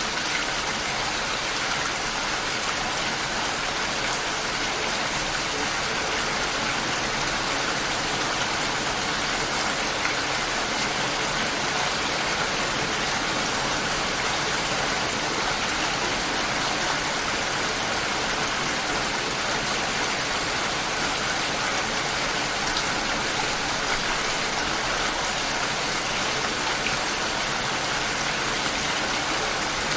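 Light rain falling steadily, an even hiss of drops with no thunder.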